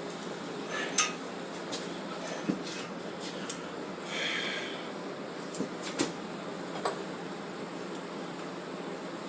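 Scattered light metallic clinks and taps of pliers and small steel stock against a mandrel as a heated bar is bent into a ring. The loudest clink comes about a second in, and there is a brief scrape about four seconds in.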